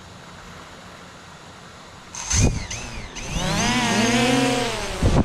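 A quadcopter drone's propellers spin up suddenly about two seconds in, with a loud whine whose pitch rises and falls as it lifts off carrying the fishing bait.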